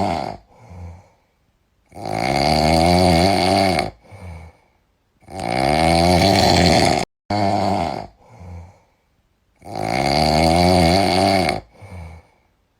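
A sleeping cat snoring loudly in long, rasping snores of about two seconds each, roughly every four seconds, each followed by a short faint breath.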